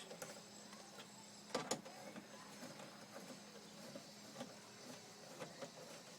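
Faint, sparse clicks of a hand tool tightening bolts on a car door's power window regulator, with a sharper double click about a second and a half in, over a faint steady low hum.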